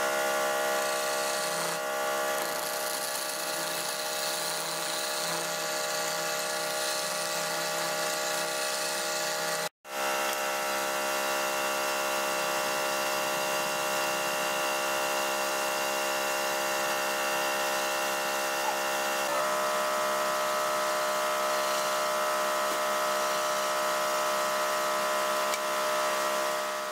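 Wood lathe motor running steadily with a whining hum while a steel chisel cuts and scrapes a spinning wooden spindle. The sound cuts out for a moment about ten seconds in.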